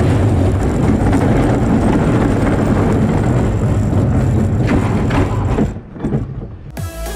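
E&F Miler steel roller coaster train rolling along its track: a steady, loud rumble of wheels on steel rails that falls away sharply about six seconds in. Music starts near the end.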